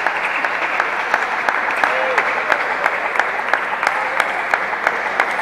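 Steady din of a busy table tennis hall, crossed by a few sharp clicks a second from balls and bats in play.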